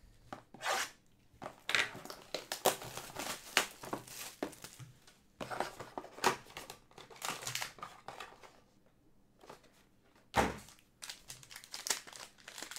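Plastic wrapping on a trading-card box being torn and crinkled by hand, then the cardboard box being opened, in a run of short crackling bursts. A dull thump comes about ten seconds in.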